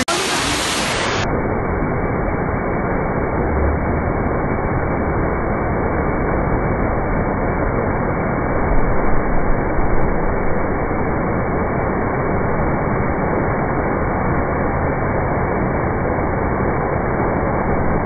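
Waterfall pouring onto rocks: a steady rushing noise of falling water that turns duller and muffled about a second in.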